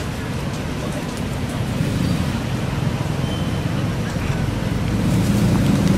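Steady low outdoor rumble of background noise, getting louder toward the end.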